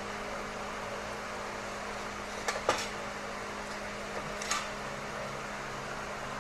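A steady mechanical hum in a workshop, with a few sharp metallic clinks of tools or parts: two close together about two and a half seconds in and another about four and a half seconds in.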